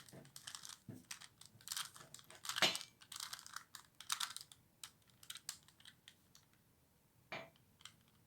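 Plastic layers of a 3x3x3 Rubik's Cube being turned by hand: quick clicking clacks in a busy run for the first few seconds, then thinning out to a few scattered clicks.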